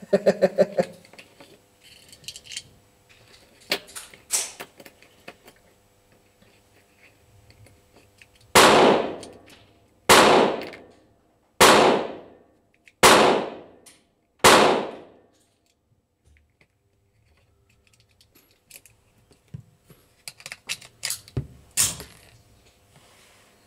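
Five pistol shots fired at a steady pace about a second and a half apart, each crack ringing on for most of a second. Fainter sharp clicks come before and after the string.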